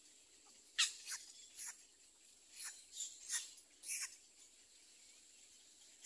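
Little egret chicks calling: a run of about eight short calls, each falling in pitch, from about a second in to about four seconds in, the first the loudest.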